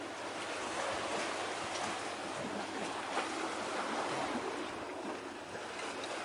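Steady rushing noise of wind and water, even throughout with no clear engine hum.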